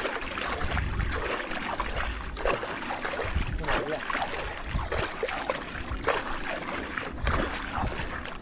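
A hooked fish thrashing at the surface, making irregular splashes in quick succession, with a low wind rumble on the microphone.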